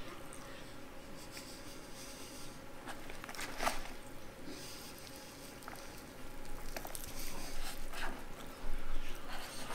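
Deli fried chicken being torn apart by hand: the crispy breading crackles and the meat squishes as it pulls away, with close chewing. Louder crackles come about three and a half seconds in and again near the end.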